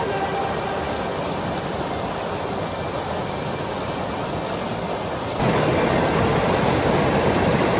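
Steady rush of fast-moving water, like a river or waterfall, which gets louder about five seconds in.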